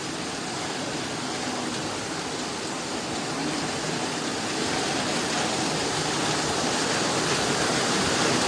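Steady rushing noise of heavy typhoon rain and fast-flowing floodwater, growing slightly louder.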